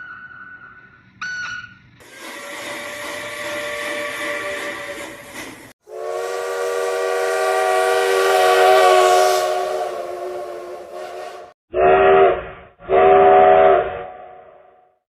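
Steam locomotive whistle sounds one after another: a brief toot, a hissy whistle lasting a few seconds, a long multi-tone chime whistle, then two short multi-tone blasts.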